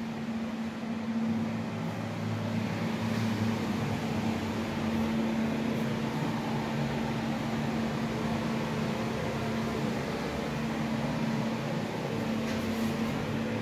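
Steady machine hum with a low drone over an even hiss, like a ventilation fan or air-conditioning unit running.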